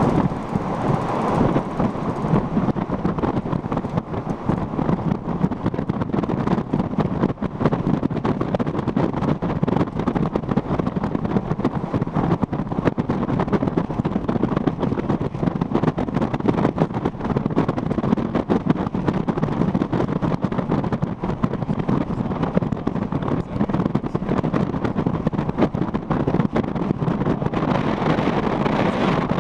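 Strong wind buffeting the microphone: a steady, rough rush with constant small gusts. It gets a little brighter near the end.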